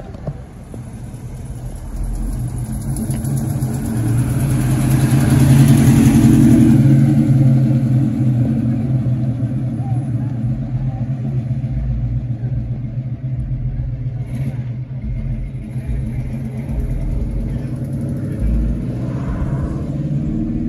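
Car engine running, getting louder to a peak about six seconds in, then easing off to a steady level.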